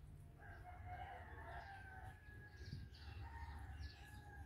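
A rooster crowing faintly in one long drawn-out call, heard over a low steady rumble.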